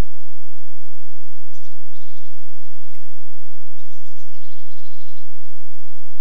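A small bird calling in two short bursts of rapid high trills over a steady hiss, with a single sharp click about three seconds in.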